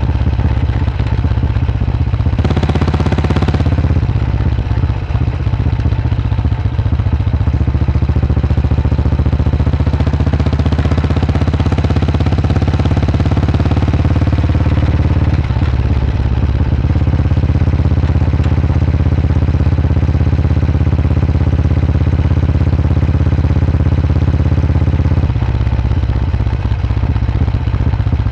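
Vintage single-cylinder motorcycle engine running under way on the road, its note stepping in pitch several times, a few seconds in, around the middle and near the end. A brief rush of noise comes a few seconds in.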